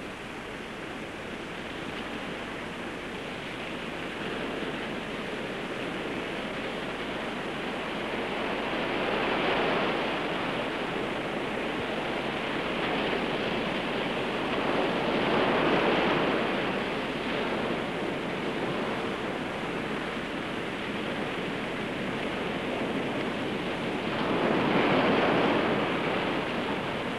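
Ocean surf breaking on the shore: a steady rush of waves that swells louder three times.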